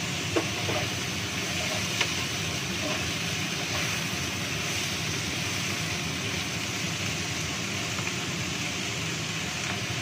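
Banana blossom and long beans stir-fried in a nonstick wok over a gas flame: a steady frying hiss, with a wooden spatula knocking against the pan about half a second in and again at two seconds.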